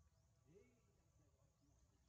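Near silence. One faint, brief call rises and bends about half a second in.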